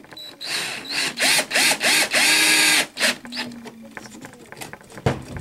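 Cordless drill driving a screw into a 3D-printed plastic part in several short trigger bursts and then one longer run, the motor's pitch rising and falling with each pull. The screw is cutting its own threads in an unthreaded hole. A single knock comes near the end.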